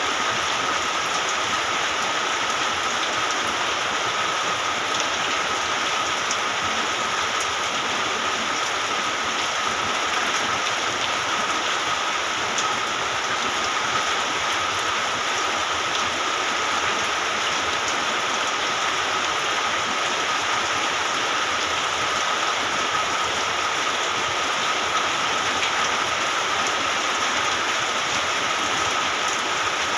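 Steady rain falling, an even hiss with scattered drop ticks. A thin steady tone runs underneath it throughout.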